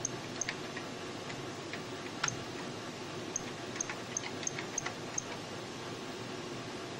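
Steady fan hum of the running Robotron R4201 computer installation, with about nine sharp, irregularly spaced clicks, most of them between two and five seconds in.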